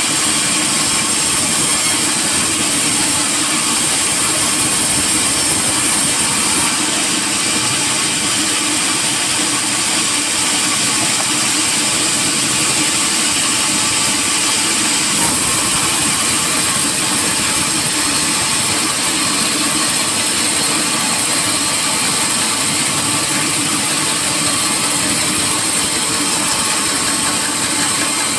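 Sawmill machinery running steadily as teak logs are sawn, a continuous loud mechanical noise.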